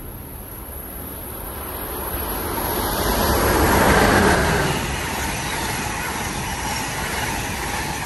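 Amtrak ACS-64 electric locomotive and Amfleet coaches passing: a rushing rumble of wheels on rail that rises to its loudest as the locomotive goes by about four seconds in, then holds steady as the coaches roll past.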